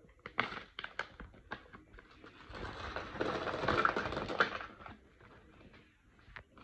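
A plastic zip-top bag pulled open with a few sharp clicks, then small tumbled stones poured out of it, clattering for about two seconds onto a pile of rocks in a cardboard box.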